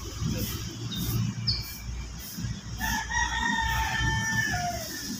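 A rooster crowing once, starting a little past halfway: one long call held at a steady pitch that drops at its end. Low rustling of plants being handled runs underneath.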